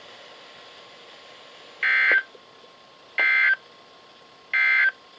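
NOAA Weather Radio SAME end-of-message (EOM) data bursts: three short, harsh digital tone bursts about a second and a half apart, closing the weekly test message.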